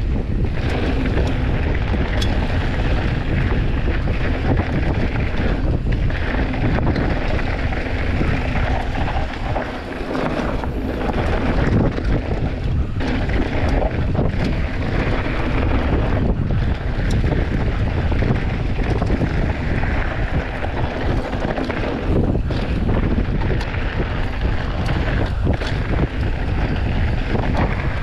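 Heavy wind buffeting the microphone of a mountain bike's camera on a fast descent, over the rush of tyres on a dirt trail, with the bike knocking and rattling over bumps throughout.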